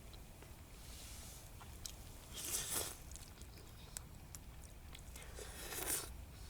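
A person eating meat and noodles close to the microphone: faint chewing with small clicks, and two short, louder airy sounds, about two and a half seconds in and near the end.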